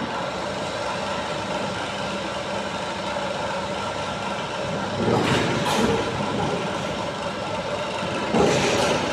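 Heavy engine running steadily in a locomotive shed, with two louder rushing bursts about five and eight and a half seconds in.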